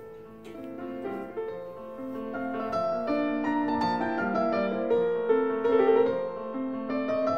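Background piano music: a melody of held notes that gets louder about two seconds in.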